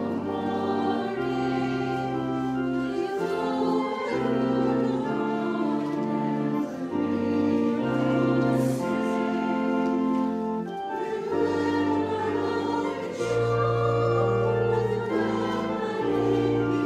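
Hymn music: singing over sustained chords that change about once a second, with a steady bass line.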